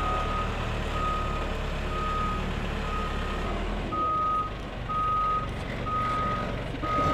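Backup alarm of a construction vehicle reversing: a steady single-tone beep repeating about once a second, over the low rumble of its engine, which drops off about four seconds in.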